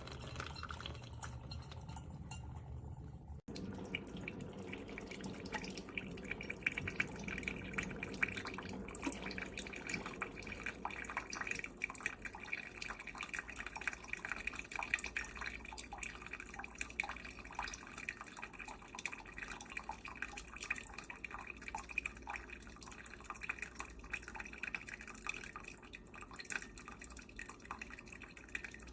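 Drip coffee maker brewing, the OXO Brew 8 Cup: a steady hiss of water with fine crackling and dripping, starting after a brief dropout about three and a half seconds in.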